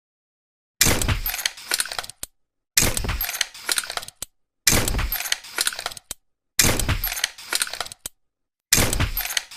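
Tranquilizer pistol shot sound effect: a sharp shot that dies away over about a second with a trail of clicks. It comes five times, about two seconds apart, with silence between.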